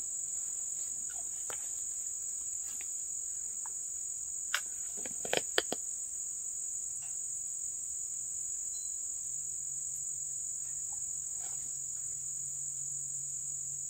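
Steady, high-pitched chorus of summer insects, with a few short clicks about four to six seconds in.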